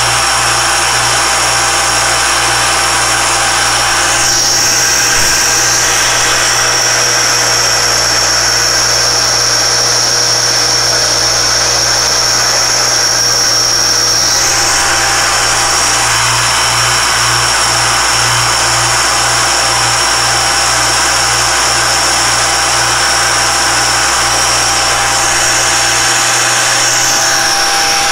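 Alexander Model 3A pantograph's spindle motor running steadily, its engraving cutter cutting into a watch dial blank, with a high whine that shifts in pitch a few times and a low hum that begins to throb about halfway through.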